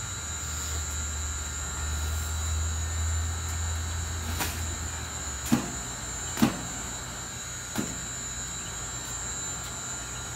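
A low steady motor-like rumble that stops about halfway through, then three sharp knocks about a second apart, over a thin steady high whine.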